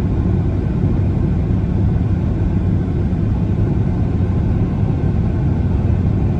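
Steady low rumble of a car driving on the road: tyre and engine noise heard from inside the cabin.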